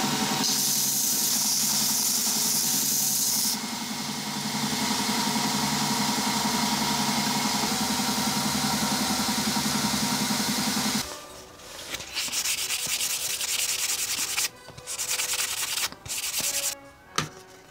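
Belt grinder running, its abrasive belt sanding a wooden knife handle pressed against it, with a steady motor hum under the grinding hiss. About eleven seconds in it gives way to hand sanding: short rubbing strokes of sandpaper on the handle with brief pauses.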